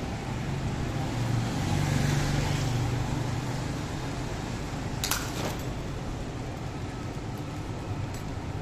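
City street traffic: a vehicle's low engine hum passes during the first few seconds over a steady wash of road noise. A single sharp click comes about five seconds in.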